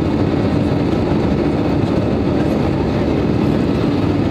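Steady jet engine and airflow noise inside an Airbus A320's cabin during the climb just after takeoff, with a constant low hum under it.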